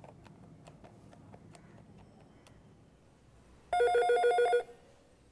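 Soft clicks of telephone keypad buttons being pressed over the first couple of seconds, then an electronic telephone ring: one fast warbling trill just under a second long, about three-quarters of the way in. It is the called phone ringing after the number is dialled.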